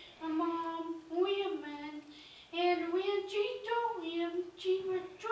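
A young girl's voice at a microphone, in short phrases separated by brief pauses.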